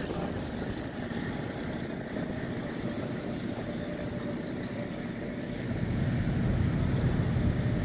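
Steady engine rumble of heavy equipment at a fire-and-demolition site, a fire apparatus and an excavator running, with a faint steady whine over it. It grows louder from about six seconds in.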